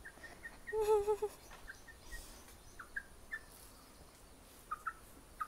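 Domestic hen giving a low, wavering call about a second in, followed by faint short high chirps scattered through the rest.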